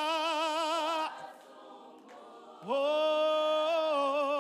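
Worship singing in Bemba. A long held note with vibrato ends about a second in, and after a short pause another long note begins, held steady and then wavering into vibrato.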